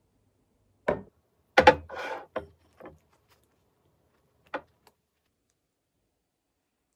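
A handful of wooden-sounding knocks and clacks of objects being handled and set down, with a short rubbing sound after the loudest pair of knocks.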